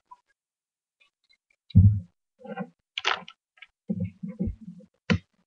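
A heavy thud about two seconds in, then a run of smaller knocks and clicks and a sharp click near the end: things being handled close to the microphone.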